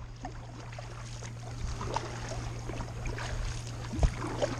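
Kayak paddle strokes in calm water: drips and small splashes from the blades and water trickling along the hull, over a steady low hum. A light thump about four seconds in.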